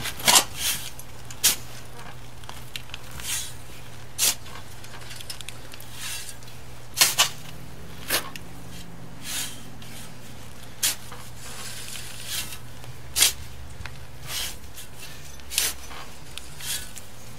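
Shovel scraping into a sand pile and tossing loose sand onto a mound, in short irregular strokes about every second or two, sometimes two close together.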